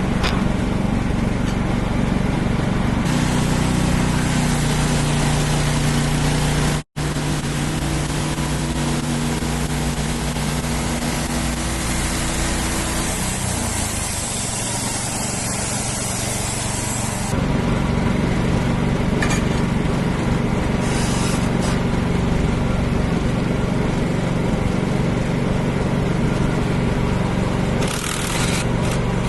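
Wood-Mizer portable band sawmill running, its engine droning steadily under the hiss of the band blade cutting through a black walnut log. The sound drops out for an instant about seven seconds in.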